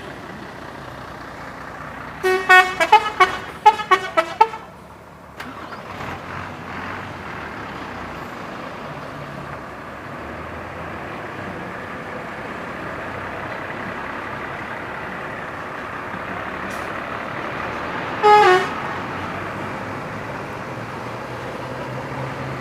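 Tour bus 'telolet' horn, the multi-tone musical horn of Indonesian buses, playing a quick tune of about ten short notes, followed much later by one short note that falls in pitch. A steady vehicle rumble runs underneath.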